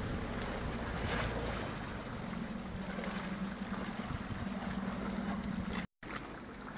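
Tour boat's engine running steadily under the rush of water along the hull and wind on the microphone. Near the end the sound drops out for a split second.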